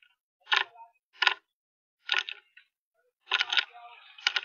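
Clock-like ticking: short sharp ticks roughly every three-quarters of a second, the last two doubled, with a faint rough noise under the final second.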